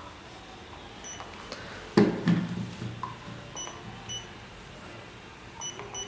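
Short high electronic beeps in pairs about half a second apart, from a laser distance meter taking wall-to-wall measurements, with a single thump about two seconds in.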